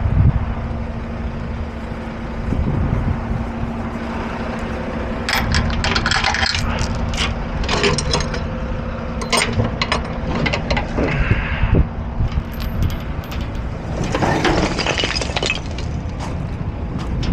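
Metal clanks and knocks from the steel rear-door latch and chain of a roll-off dumpster being unlatched and swung open, in two bursts: about five to ten seconds in and again about fourteen seconds in. A truck engine runs steadily underneath.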